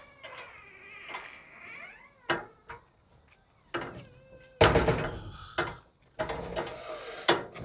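Metal clanks, knocks and scraping from steel shipping container doors being swung shut and latched, with a squeal early on and two louder spells of banging past the middle.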